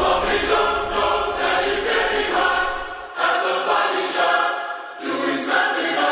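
Soundtrack music: a choir singing long held chords in slow phrases, over a low rumble that fades out about three seconds in.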